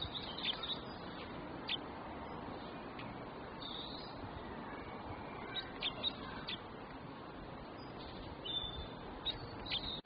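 Small songbird giving short, high chirps in brief clusters several times over, against a steady background hiss.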